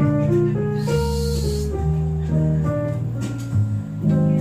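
Music with a steady bass line and plucked guitar melody, played loud through a sound system during a sound check. A short hiss rises over it about a second in.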